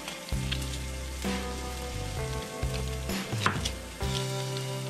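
Sliced sweet peppers and onion sizzling as they sauté in butter in a skillet, an even frying hiss with a few light clicks and a steady low hum underneath.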